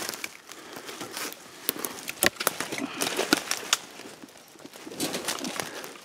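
Footsteps crunching through dry leaf litter and brush, with twigs snapping and branches brushing past; a cluster of sharp snaps comes between about two and four seconds in.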